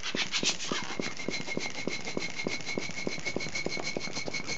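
Hand balloon pump inflating a long black 160 modelling balloon, with even pump strokes about three a second. From about a second in, a thin steady whistle of air runs under the strokes.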